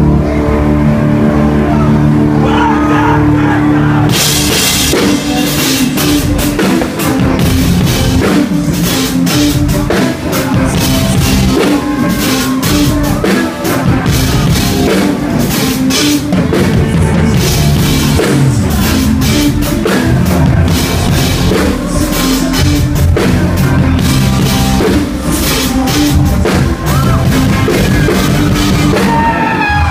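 A live rock band playing, with drums, electric guitar, bass, keyboard and a lead singer. A steady synth sound holds alone for about the first four seconds, then the drums and the full band come in.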